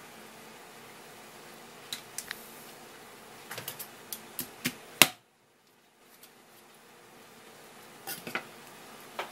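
A kitchen knife and a split grouper head knocking and clicking on a plastic cutting board: a few scattered sharp taps, with one loud knock about five seconds in. A faint steady hum lies underneath.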